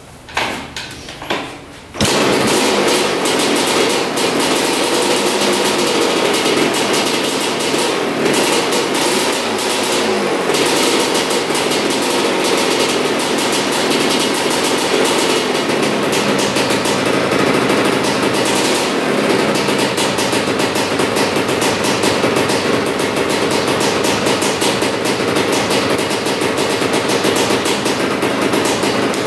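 1983 Honda CR250R two-stroke single-cylinder engine, after a couple of short sputters, catches about two seconds in and runs on steadily. Its pitch wavers for a while as the revived engine is being brought down to idle.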